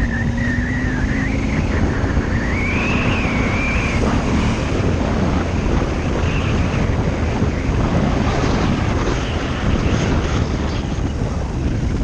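Off-road motorcycle engine running under way on a dirt track, with wind buffeting the microphone; its note wavers in pitch during the first few seconds.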